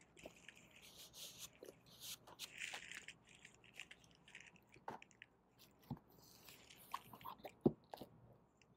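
Faint rustling of paper and cardboard as a vinyl LP's paper inner sleeve is slid into its jacket and the record is handled, with a few soft knocks; the sharpest knock comes near the end as the LP is pushed into the cardboard box set.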